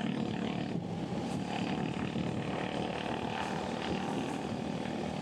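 Royal Enfield Hunter 350 motorcycle on the move, its engine running steadily under road and wind noise.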